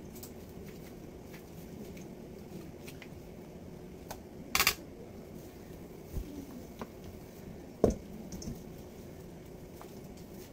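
Gloved hands handling and shaping sticky cookie dough: faint clicks and handling noises, a short scrape a little under halfway through, and a sharp knock about three quarters through, over a steady low hum.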